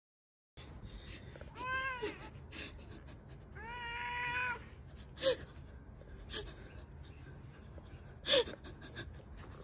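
A pet animal giving two pitched cries, a short one that rises and falls about a second and a half in and a longer, level one about two seconds later, followed by a few faint short sounds.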